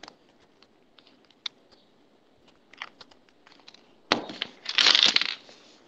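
Scattered light clicks, then about four seconds in a loud burst of rustling, crackling noise lasting about a second, with a shorter crackle near the end.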